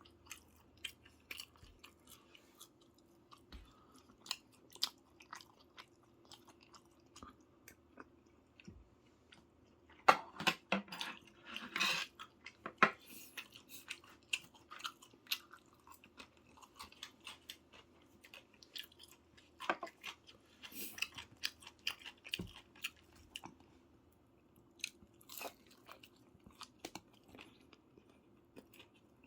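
Close-up chewing and eating sounds of soy-braised chicken (ganjang jjimdak): many small wet smacks and clicks, with a couple of busier flurries partway through.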